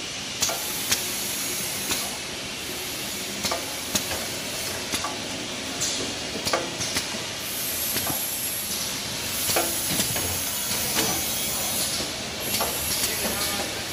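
XY-AI-653D kitchen towel roll bundle packing machine running: a steady mechanical hiss, with irregular sharp clicks and knocks from the conveyors and pusher.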